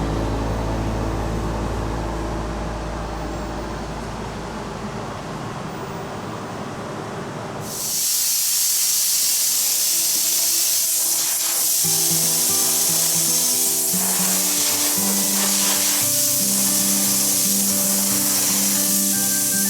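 Background music with a low drone that fades out; about eight seconds in, a loud steady hiss from body-shop work on the car starts under the music and keeps going.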